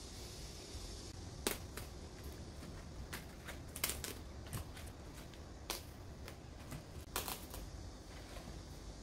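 Crisp napa cabbage leaves being pulled off the head and dropped into a stainless-steel mesh colander: a scattering of sharp snaps and crackles over a low steady hum.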